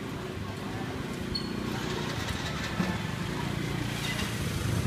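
A motorcycle engine running nearby among street traffic, a steady rumble growing slightly louder.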